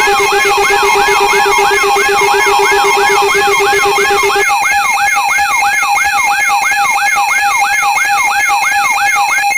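Electronic alarm tones: a loud siren-like whoop that rises in pitch and repeats about three times a second, layered over steady electronic tones. A low steady tone drops out about four and a half seconds in, while the whooping keeps going.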